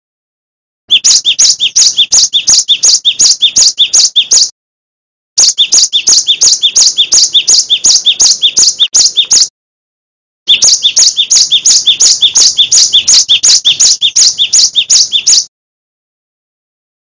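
Cinereous tit (gelatik batu) singing a fast string of repeated two-part whistled notes, about four a second, in three long bouts with short pauses between them.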